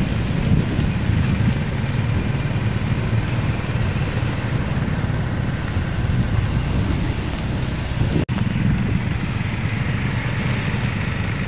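Motor vehicles of a motorcade running, a steady engine and road rumble, with a sudden brief dropout in the sound a little over eight seconds in.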